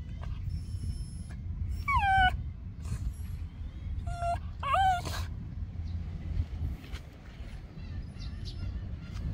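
Miniature schnauzer whining in three short whimpers, about two, four and five seconds in; the first slides down in pitch and the last rises then falls. It is the whine of a dog told to wait for its owner.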